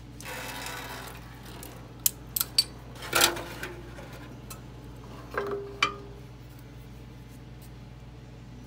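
Metal parts and hand tools being handled: a brief rustle, a few light ticks, then two metallic clinks that ring briefly, about three and five and a half seconds in, over a steady low hum.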